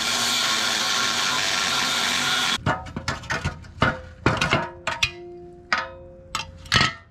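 Angle grinder with a cut-off wheel cutting through the steel front subframe, a steady grinding noise that stops abruptly about two and a half seconds in. Then come a series of sharp metallic clanks, some ringing briefly, as the cut steel pieces knock together.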